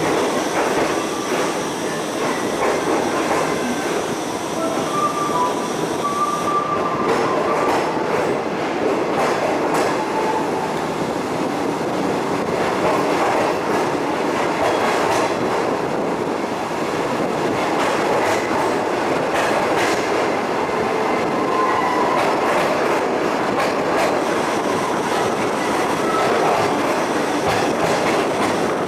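Passenger train coaches rolling slowly out of the station, heard at an open coach window: a steady rumble of steel wheels on the rails, with a few brief, faint wheel squeals.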